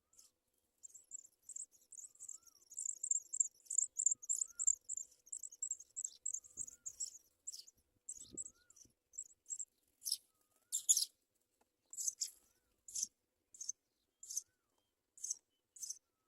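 Very high, thin chirping of baby birds at a nest, begging for food: a fast run of cheeps for several seconds, then single chirps about once every second or less.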